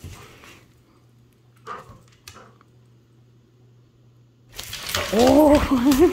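Quiet for about four seconds, then a burst of scuffling and rustling as a plush toy is taken from a large dog's mouth during play, with a short spoken "Oh."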